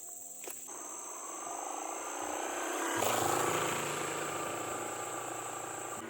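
A small engine running, growing louder over the first three seconds and then holding steady, over a steady high buzz of insects.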